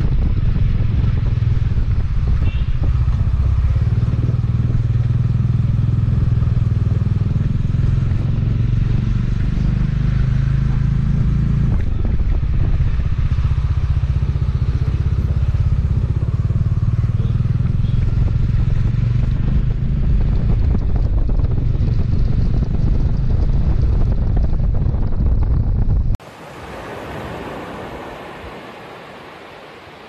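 Bajaj Dominar 400's single-cylinder engine running steadily while riding at road speed, mixed with a heavy low rumble. About 26 seconds in it cuts abruptly to the softer noise of small waves breaking on a beach, which swells briefly and then fades.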